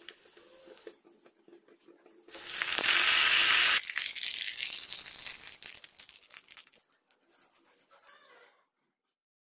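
Tempering of cumin, mustard seeds and curry leaves sizzling in hot oil. A loud burst of sizzling and spluttering starts about two seconds in, drops sharply a second and a half later, then fades out with scattered crackles.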